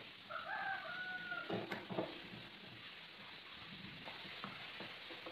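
A few sharp knocks and clicks of a steel bar clamp being slid into place and tightened against a plywood jig on a wooden workbench, the loudest about one and a half to two seconds in, with fainter clicks later. A rooster crows once in the background near the start, one call of about a second.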